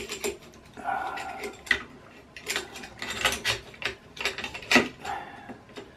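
Irregular metal clicks and knocks of a metal mounting plate, its roller wheel, spacers and bolts being handled and fitted onto the aluminium frame of a Creality CR-10 3D printer.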